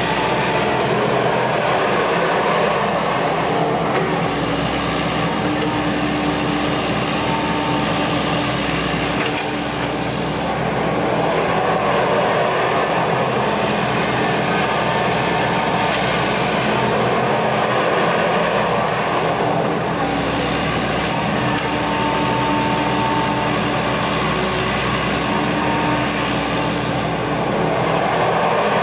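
Excavator's diesel engine running steadily while it digs and loads, with a hydraulic whine that comes and goes as the arm and bucket move. A couple of short hisses sound, one about three seconds in and one near the middle.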